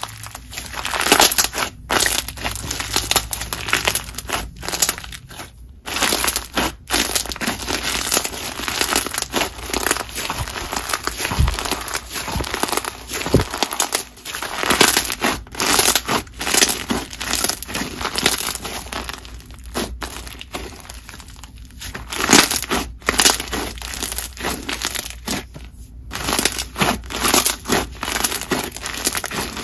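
Thick slushy slime packed with flat disc slushy beads, stretched and squeezed by hand: dense crunching and crackling with sharp bubble pops. It comes in spells broken by short pauses.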